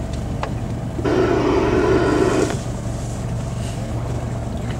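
Boat engine idling with a steady low hum on open water. About a second in, a loud pitched sound is held for about a second and a half.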